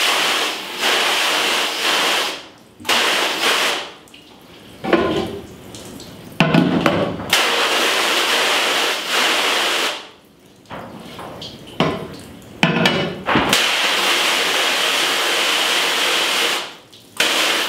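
Water spraying hard from a hose spray nozzle onto an emulsion-coated screen-printing screen and into a washout sink, washing out the unexposed emulsion to develop the stencil. The spray stops and starts several times, with quieter splashing in the gaps.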